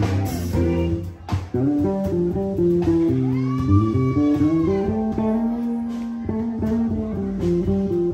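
Live blues band playing, with an electric guitar taking a solo that bends notes upward, over bass guitar and electric keyboard.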